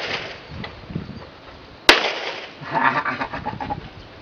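A single shot from a Para Ordnance 1911 high-capacity .40-calibre pistol, about two seconds in: one sharp crack with a short echo trailing off.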